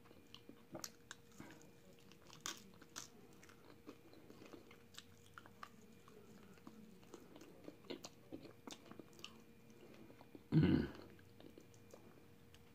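Close-up eating sounds of fried chicken: small wet clicks and soft crunches of chewing and picking crispy skin and meat off the bone. A brief vocal sound comes near the end.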